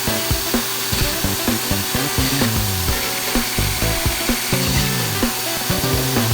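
Wood being shaped on a homemade lathe: an electric drill spins the workpiece while a chisel scrapes it, a dense, continuous rasping hiss. Background music plays underneath.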